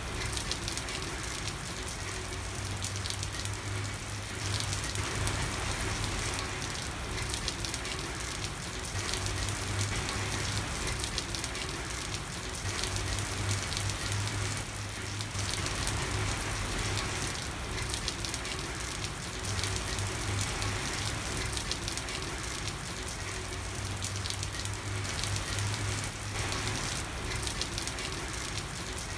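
Steady rain falling on a street, with dense pattering of raindrops on hard surfaces and a constant low hum underneath.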